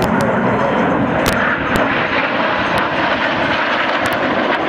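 Jet engines of a three-ship formation of Turkish Stars Canadair NF-5 jets passing overhead, a steady rushing jet noise.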